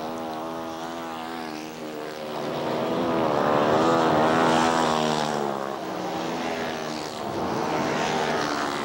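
Dirt-track racing motorcycles at full throttle, their engines swelling as they come down the straight and bending in pitch as they pass, loudest about four to five seconds in. More bikes follow toward the end.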